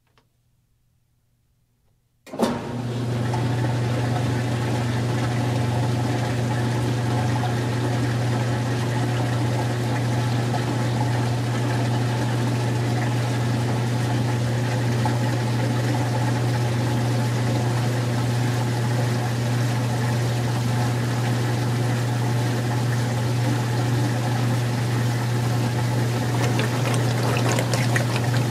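Magic Chef 20-pound top-load washer starting its final rinse spin and drain. After about two seconds of near silence it starts with a click, then runs with a steady low hum while water pours out as the tub spins.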